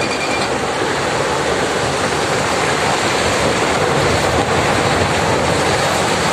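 Quarry rock face collapsing in a landslide: a loud, continuous rushing rumble of falling rock and earth.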